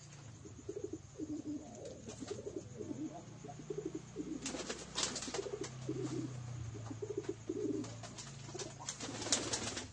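Domestic pigeons cooing: a run of short, low coos repeating about every half second, with brief rustling clicks in the middle and near the end.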